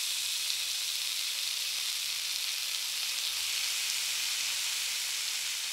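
Raw chicken strips sizzling in very hot oil in a stainless steel skillet as they are laid in to sear: a steady, even frying hiss.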